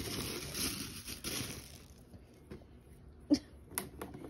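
Tissue paper and packaging rustling in a cardboard box, fading out about a second and a half in. A few sharp clicks and taps follow, the loudest a little after three seconds.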